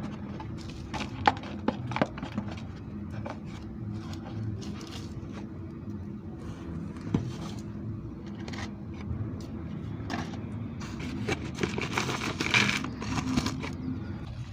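Scraping, rustling and light clicks of objects being handled, busiest about eleven to thirteen seconds in, over a low steady hum.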